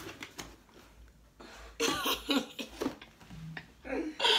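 A person's voice laughing and exclaiming in bursts, loudest near the end, after a few light clicks at the start.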